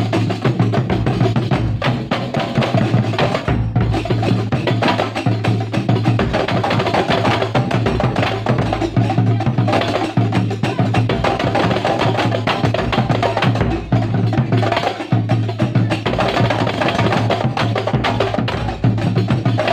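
Kuntulan percussion ensemble rehearsing: drums struck in a dense, unbroken rhythm.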